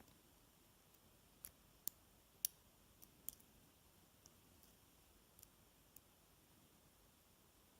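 Faint, sharp clicks of a lock pick working the pin stack inside an American Lock Series 50 padlock during single-pin picking. There are about eight scattered ticks, most in the first half.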